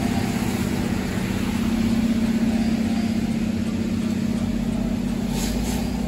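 Steady low mechanical hum, an unchanging drone, with a few faint ticks near the end.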